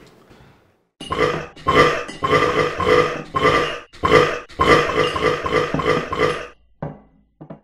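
Loud end-card sting: a run of harsh, buzzing pulses repeated about three times a second, starting about a second in and stopping about six and a half seconds in, followed by two short blips.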